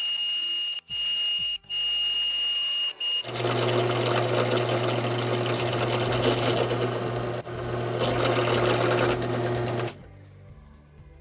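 Drill press running, a small twist drill lightly drilling pip indents into an aluminum die cube, in several short clips cut together. A steady high whine comes first; from about three seconds in there is a louder, lower hum with the cutting noise, which drops away about ten seconds in.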